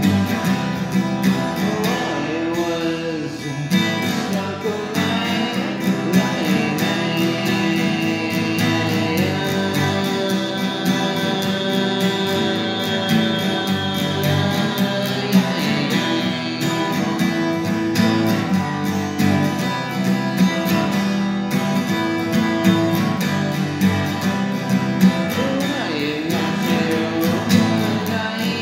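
An acoustic guitar playing an original song, with a voice singing along at times, most clearly near the start and near the end.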